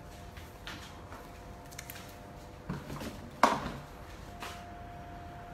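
A lidded cooking pot being handled on a gas stove's grate: a soft knock, then a sharp metallic knock with a short ring about three and a half seconds in, over a faint steady hum.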